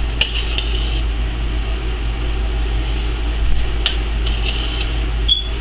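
A large pot of chicken and dumplings at a rolling boil, bubbling over a steady low hum, with a spoon knocking against the pot about three times as it is stirred, the last knocks ringing briefly.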